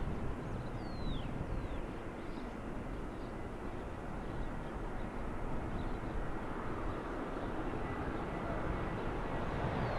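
Jet aircraft engines heard at a distance: a steady rumble and hiss with a faint thin whine, growing slowly louder toward the end. A few short, high, falling chirps sound over it.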